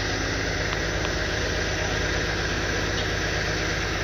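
Heavy diesel tow truck's engine idling steadily, a low even rumble with a constant hiss of noise over it.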